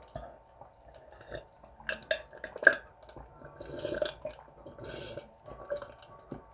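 A person gulping juice from a glass: wet swallowing clicks, the sharpest between two and three seconds in, then two breathy gulps about a second apart.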